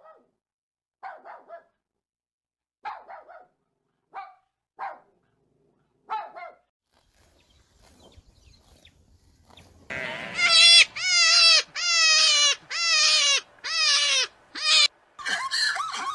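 An animal calling: a few faint short cries, then six loud, high-pitched calls in quick succession, each falling in pitch, followed by a burst of further mixed animal noise near the end.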